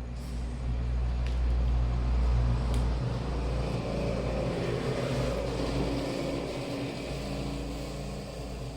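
A motor vehicle's engine rumbling past, growing louder to a peak about two seconds in and then slowly fading.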